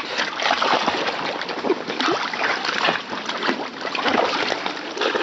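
Pool water splashing and sloshing as a Jack Russell terrier paddles in a small inflatable pool, with irregular splashes throughout.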